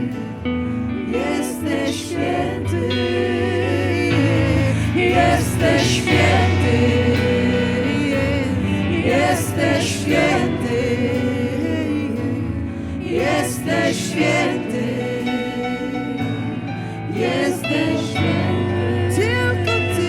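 Live worship music: several voices singing freely, with wavering and swooping melodic lines, over held instrumental chords and a low bass.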